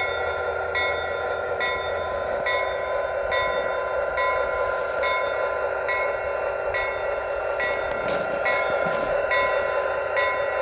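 Sound system of a Lionel LionChief RS3 model diesel locomotive: its bell rings steadily, a little under once a second, over a constant diesel engine rumble.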